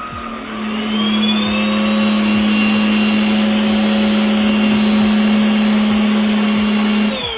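A27 cordless stick vacuum running in upright mode on its highest suction setting. Its motor spins up with a rising whine over the first couple of seconds, runs steady, then winds down and stops near the end.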